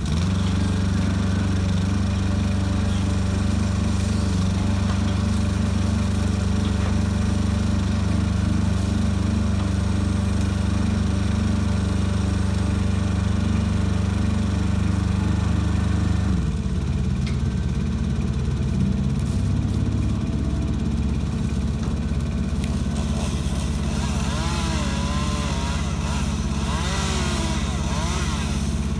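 Truck-mounted grapple saw crane's engine and hydraulics running steadily as the boom swings and the grapple closes on a tree trunk. The engine note changes a little over halfway through, and a wavering whine rises and falls near the end.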